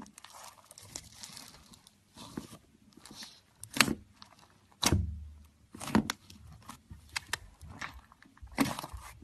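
Hands squishing, stretching and poking slime, some of it mixed with foam beads, in a plastic tub: irregular sticky pops and crackles. The loudest are about four and five seconds in, the second with a dull thump.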